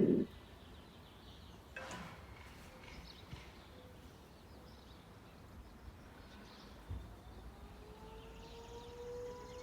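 Faint outdoor ambience with scattered bird chirps and a couple of soft knocks; from about eight seconds in, a distant outdoor tornado warning siren starts to wind up, a slowly rising tone.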